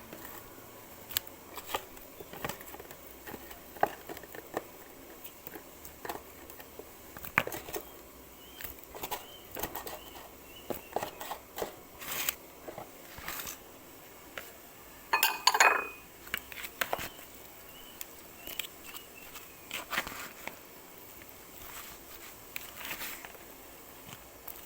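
Scattered clicks, taps and knocks of kitchen utensils and dishes being handled during food preparation, with a louder clatter about two-thirds of the way through.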